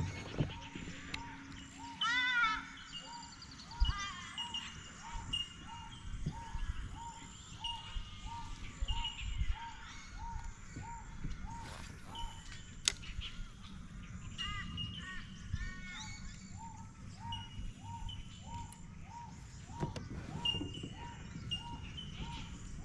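Several birds calling in riverside bush: one repeats a short note about every two-thirds of a second, while others add short high whistled notes and chirps.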